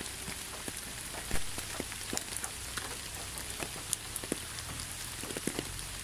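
Steady light rain: an even hiss with scattered drops ticking.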